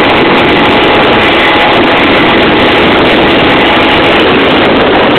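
Yamaha Aerox scooter being ridden at a steady speed, its engine running loud and steady under load, mixed with wind rushing over the microphone.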